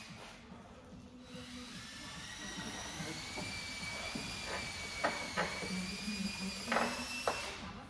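A steady motor whine, like a power tool or small machine running, slowly rising in pitch and cutting off near the end, with a few sharp clicks in the second half.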